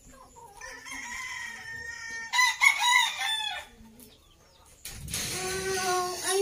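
Rooster crowing: one long crow beginning about half a second in and lasting about three seconds, loudest in its last part. Near the end comes a second, lower call.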